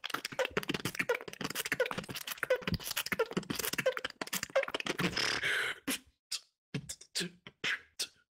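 Beatboxing heard over a voice-chat connection: a fast run of mouth-made clicks and hits with a short pitched blip recurring about every two-thirds of a second. About six seconds in it thins to a few scattered hits with silent gaps between them.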